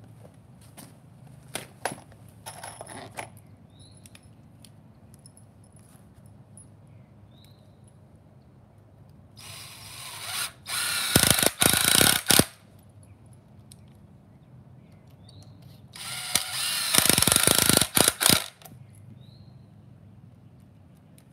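Cordless drill driving screws into pressure-treated lumber, in two runs of a couple of seconds each, about ten and sixteen seconds in. Each run speeds up and ends in a rapid rattle as the screw seats.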